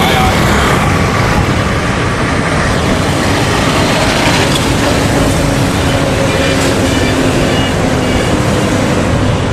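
Steady, loud street traffic noise: motorbikes and other vehicles running, with voices mixed in.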